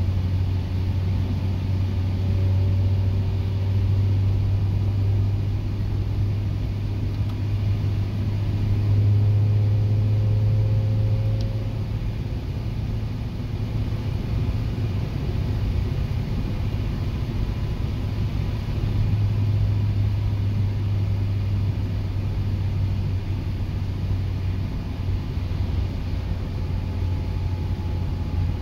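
Steady low drone of a 1996 Acura Integra GSR's engine and road noise, heard from inside the cabin while cruising. It swells slightly in places as the throttle changes.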